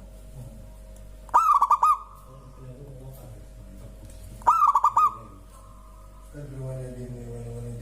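Zebra dove (perkutut) cooing: two short runs of rapid staccato coos, about three seconds apart. Near the end a lower, drawn-out call from another bird joins in.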